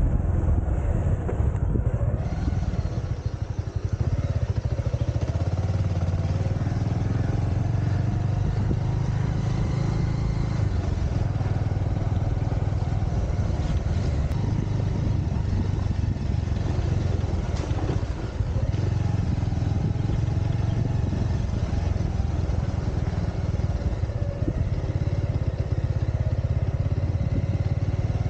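Motorcycle engine running steadily while the bike is ridden, with a strong low engine note and an even rush of wind and road noise over it.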